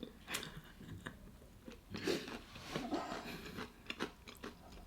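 Close-up chewing and biting into crispy fried chicken, soft irregular crunches a few times a second.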